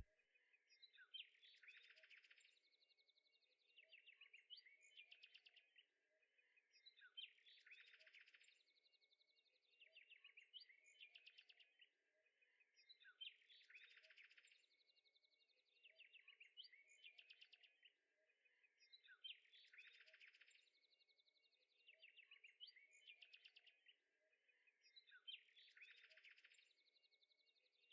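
Near silence, with faint chirping that repeats in the same pattern about every three seconds.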